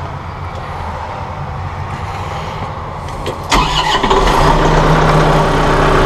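Massey Ferguson 1700-series compact tractor's diesel engine being started: the starter cranks it, and about three and a half seconds in it catches and settles into a steady run.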